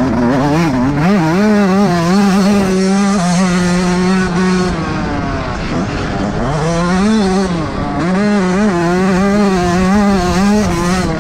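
Yamaha YZ125's single-cylinder two-stroke engine being ridden hard, its pitch rising and falling repeatedly as the throttle opens and closes, with a drop about five seconds in before it climbs again. Heard up close from the bike itself.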